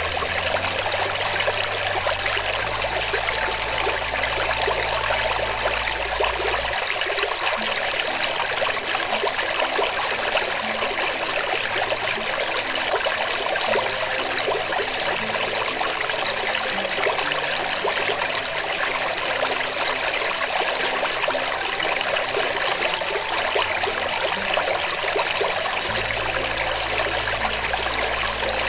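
Steady sound of running water, even and unbroken, with a low hum beneath it for a few seconds early on and again near the end.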